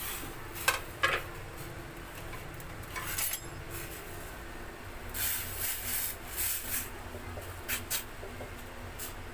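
Steel kitchenware being handled on a counter: two sharp clinks about a second in, rustling and scraping in the middle, and two more clinks near the end, over a steady low hum.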